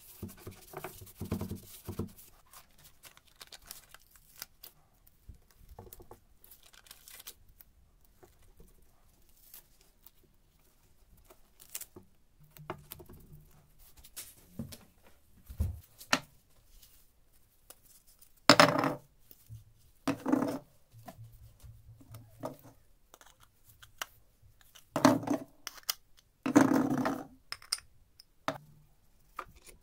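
Intermittent workbench handling noise: a steel frame being wiped with a tissue and self-adhesive felt pads peeled from their backing and pressed onto its feet, with small clinks and rustles. Several louder, half-second scrapes come in the second half.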